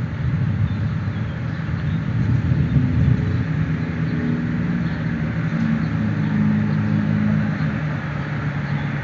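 Low, steady rumble of city traffic, with a vehicle engine's hum coming through for several seconds in the middle.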